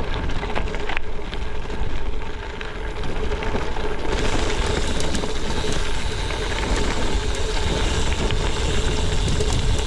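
Gravel bike rolling down a loose, rocky gravel road: the tyres crunch and the bike rattles, with wind on the microphone. The noise grows louder and hissier about four seconds in as the speed picks up.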